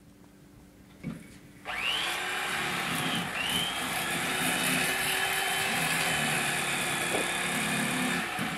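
Corded electric fillet knife switched on about a second and a half in, its motor whining up to speed and then running steadily as the reciprocating blades saw through a fish; the whine dips and spins up again a little after three seconds.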